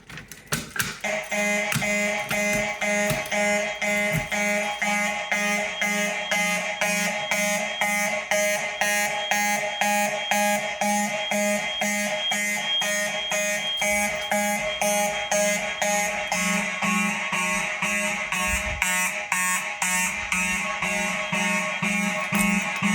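Fire alarm horns sounding together in a loud, rapid, even pulsing pattern, set off by a pulled manual pull station. They start about a second in, and around two-thirds of the way through, another horn tone joins in.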